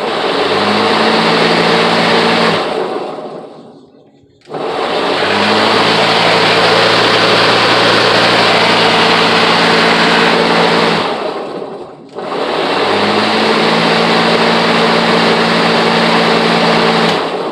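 Battery-powered electric lawnmower's motor and blade spinning up and running at a steady pitch in three runs: about two seconds, then about six, then about five, winding down after each of the first two. The mower runs properly now that its loose battery has been put back on its bracket.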